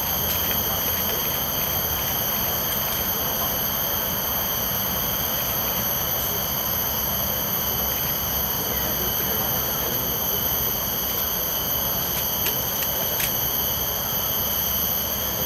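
Steady insect chorus in tropical woodland: several continuous high-pitched drones layered on top of each other, over a low background rumble.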